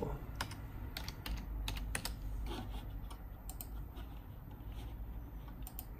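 Computer keyboard being typed on: scattered keystroke clicks, in a quick run in the first two seconds and a few more near the end, over a faint low hum.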